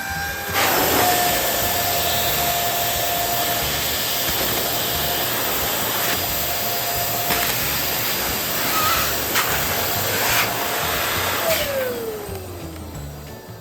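Electric balloon pump running steadily and blowing air, with a rushing sound under a steady motor whine. Near the end it is switched off and the whine falls in pitch as the motor spins down.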